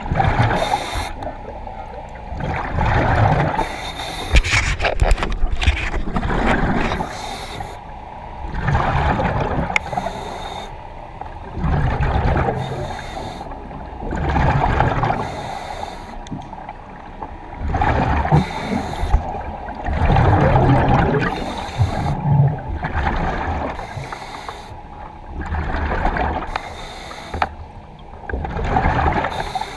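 A diver breathing in a Kirby Morgan surface-supplied diving helmet underwater: air rushes through the demand regulator and bubbles out the exhaust in regular swells, one breath every two to three seconds.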